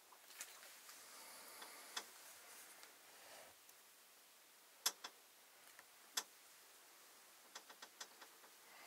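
Near silence with faint rustling at first, then a few sharp clicks and a quick run of small ticks near the end.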